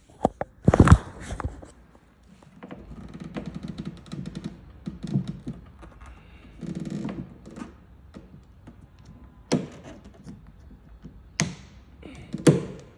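Handling noises at a car door: a thunk and knocks about a second in, rustling and scraping in between, and a few sharp knocks near the end.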